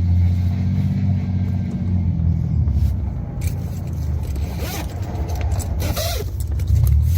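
A car engine running close by, a low rumble that eases off midway and swells again near the end, with a few short clicks or knocks in between.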